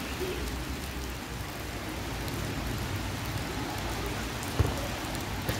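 Steady rain falling, an even hiss, with a single sharp thump about four and a half seconds in.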